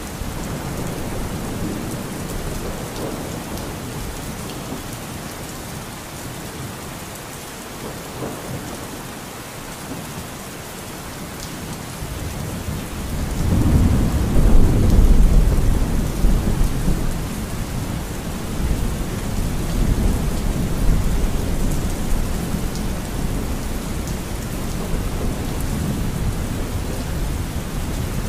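Steady rain-like noise, with a low rumble that swells about halfway through and eases off over several seconds.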